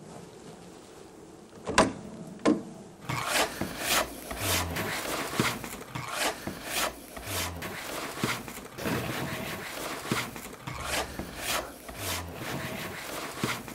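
A wooden axe handle being filed by hand in quick, even scraping strokes, about two a second, shaping it to fit an old axe head. Two sharp knocks come just before the filing starts.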